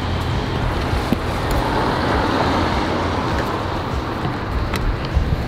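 Steady street traffic noise, a continuous rumble and hiss of passing vehicles, picked up by an on-camera shotgun microphone, with a few faint clicks.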